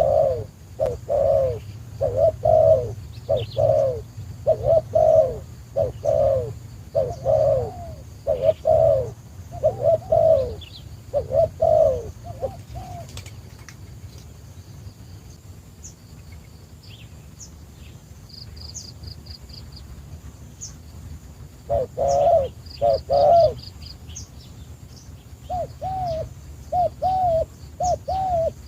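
A dove cooing in rapid runs of short rising-and-falling coos, breaking off for about ten seconds in the middle and then starting again. A small bird gives brief high trills a few times in the background.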